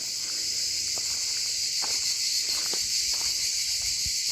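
Insects shrilling in a continuous chorus, a steady high-pitched hiss with no break, and a few faint ticks beneath it.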